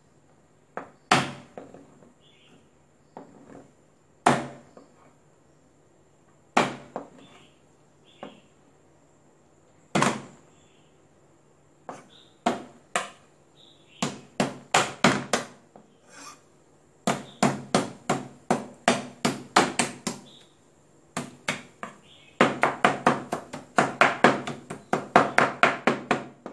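Large kitchen knife striking a plastic cutting board. For the first ten seconds there are single sharp whacks two or three seconds apart as peeled shrimp are smashed flat with the blade. After that come quick runs of chopping at four or five strokes a second, denser near the end, as the shrimp are chopped.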